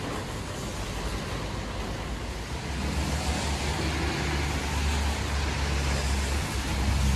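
Steady hiss of rain falling on wet ground, with a passing motor vehicle's low engine rumble coming in and growing louder from about three seconds in.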